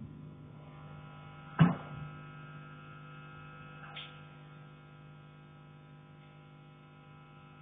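A single loud knock on a heating pipe about a second and a half in, with a short ring after it, then a fainter click about four seconds in. A steady electrical hum runs underneath.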